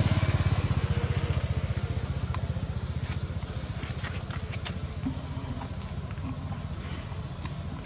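A motorbike engine running with a rapid low pulse, fading steadily as it moves away. A few faint ticks are heard near the middle.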